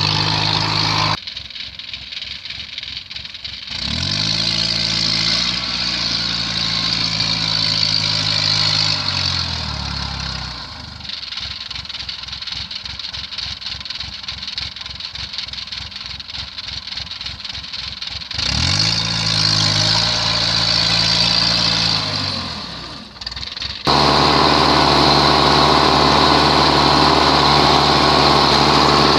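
Rice combine harvester's diesel engine running, its pitch rising and falling several times as the revs change. The level drops suddenly about a second in and jumps up again near the end.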